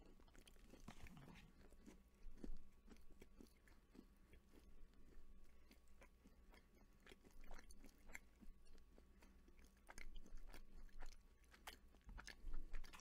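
A person chewing a chocolate-coated s'mores bite of marshmallow on graham cracker close to the microphone: faint, irregular crunching and mouth sounds.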